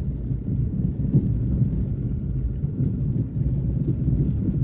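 Car engine and tyre noise on a rough unpaved lane, heard from inside the cabin as a steady low rumble.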